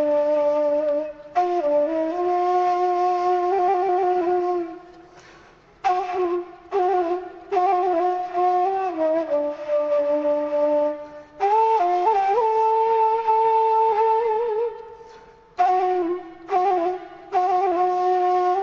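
Background music: a solo flute melody of long held notes ornamented with quick trills, played in phrases separated by brief pauses.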